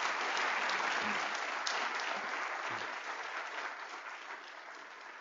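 Audience applauding at the end of a lecture, strongest at first and gradually dying away.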